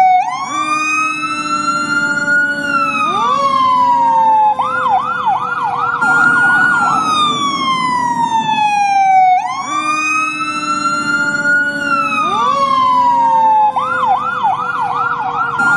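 Fire truck siren cycling through a slow rising and falling wail, broken by a stretch of fast yelping warbles at about three a second, the whole pattern repeating about every nine seconds over a low rumble.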